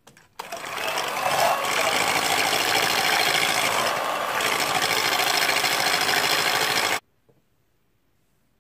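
Electric hand mixer running, its twin wire beaters whisking egg batter in a stainless steel bowl. After a brief click it runs steadily for about six and a half seconds, then stops suddenly.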